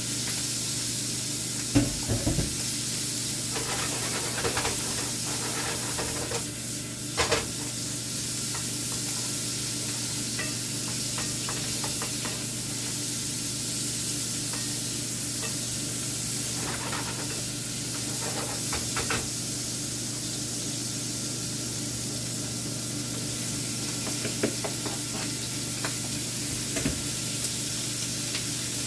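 Shrimp cooking: a steady frying hiss over a low hum. A few light clicks and knocks of utensils or cookware come about two seconds in, around seven seconds, and a few more times near the end.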